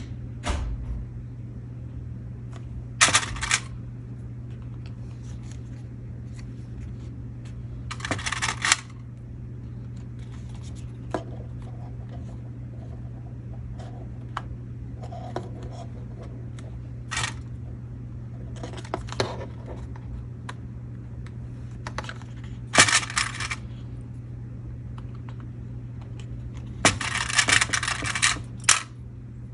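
Laminated paper pieces and small clips being handled and fitted together on a table: scattered short clicks and plastic crinkling, in about seven separate bursts with the longest near the end, over a steady low hum.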